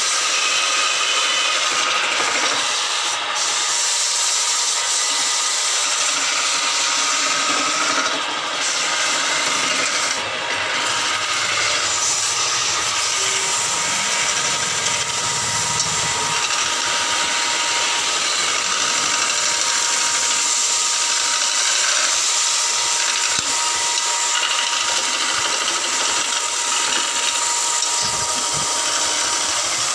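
Wood lathe running while a hand-held turning chisel cuts a spinning wooden spindle: a steady scraping of the cut.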